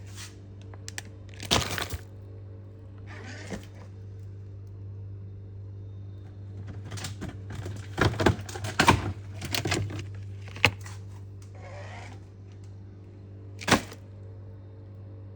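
Scattered knocks, clicks and short rustles of things being handled, over a steady low hum; a sharp knock near the end is the loudest.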